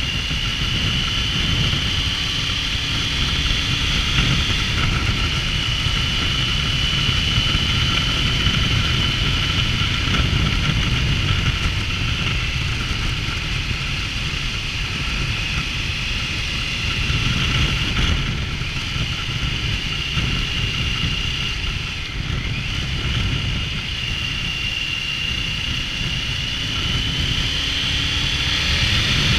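Triumph Tiger 900 motorcycle being ridden at a steady pace: its three-cylinder engine runs under a continuous low rush of wind and road noise, with a thin high whine that drifts slowly in pitch and rises near the end.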